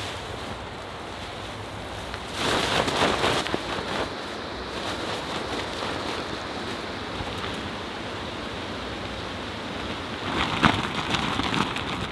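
Tent fabric rustling and flapping as it is handled, in two bursts of crackly rustle, one about two seconds in and another near the end, over a steady background hiss.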